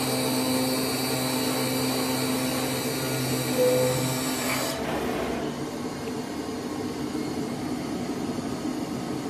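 DCZ70 CNC flatbed cutter running while it cuts corrugated board: a steady machine whine and hum. A brief tone sounds about three and a half seconds in. About halfway through the high whine stops and a lower, quieter hum carries on.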